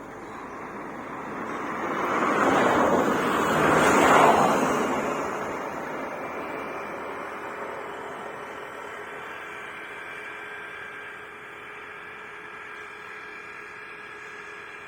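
A road vehicle passing close by: its tyre and engine noise swells, peaks about three to four seconds in and fades away within a few seconds, leaving a steady faint background hum.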